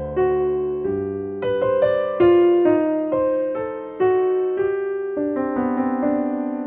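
Background music: slow, soft piano chords, each struck and left to ring out.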